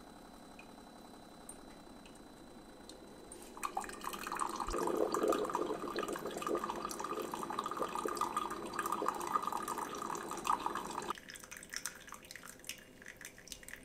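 Ninja Hot and Cold Brewed System coffee maker brewing a single cup, with coffee streaming into a ceramic mug. The brewing noise is faint at first, grows louder about four seconds in, and drops away about eleven seconds in, leaving light dripping.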